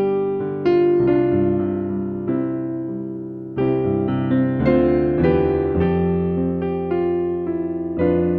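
Slow piano music: chords struck and left to ring and fade, one chord dying away for a couple of seconds before a new chord comes in about halfway through, followed by notes moving at a gentle pace.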